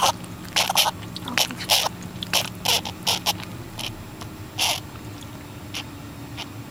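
A dog's breathing episode: a string of about a dozen short, noisy breaths at irregular intervals, coming thick at first and more sparsely in the second half.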